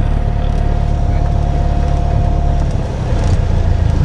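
Cessna 172S's four-cylinder Lycoming IO-360 engine and propeller running at low power on the ground, a steady low drone heard from the cabin. A thin steady whine runs alongside and stops a little under three seconds in, where the drone briefly dips.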